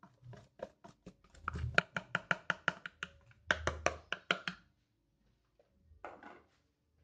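Pink plastic bowl knocked repeatedly against the rim of a plastic mixing bowl to shake out wheat flour. It makes a quick run of sharp taps, about six a second, then a second run after a short pause.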